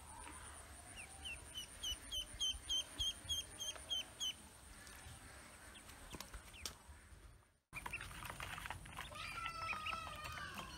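Ducklings peeping: a quick run of about a dozen high peeps, roughly three a second, then after a brief dropout a cluster of overlapping peeps from several ducklings at once.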